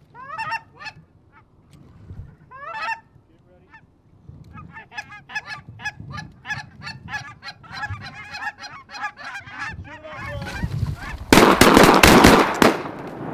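Canada geese honking and clucking as a flock comes in, mixed with hunters running goose calls fast. The calls start as a couple of single honks and become a dense rapid chatter. Near the end comes a rapid volley of shotgun blasts.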